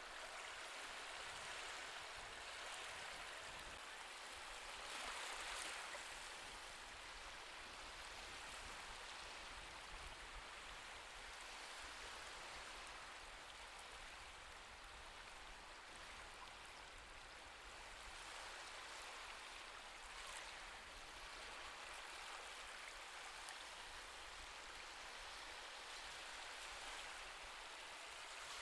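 Faint recorded ocean waves: a steady soft wash of surf that swells gently about five seconds in and again near the end.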